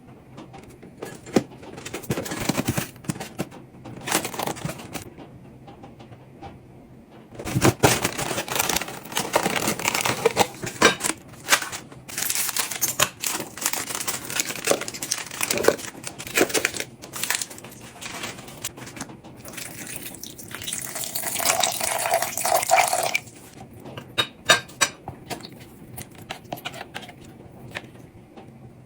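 Hands preparing cat food: packaging rustling and crinkling, with irregular clinks and scrapes of utensils and dishes. Two longer stretches of denser noise, about a quarter of the way in and again past the middle.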